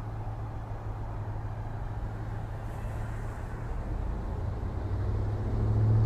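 Low, steady hum of a motor vehicle engine in street traffic, growing louder near the end.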